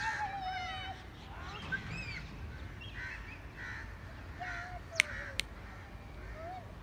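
Crows cawing repeatedly, short harsh calls about every second. Two sharp clicks about five seconds in.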